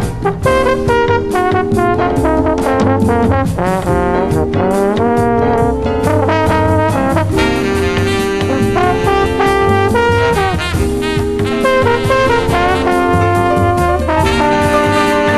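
Jazz-funk recording: trombones and other brass play held chords and short riffs together, over a steady drum beat and bass.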